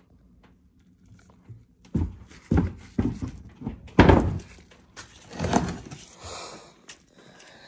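Heavy metal transfer case (NP200) being handled and turned on a wooden workbench: a run of dull thunks and scrapes after a quiet start, the loudest thunk about four seconds in.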